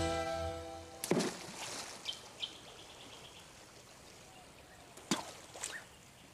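Background music fading out about a second in, then a shallow river running over rocks, with a few short high chirps and two sharp knocks.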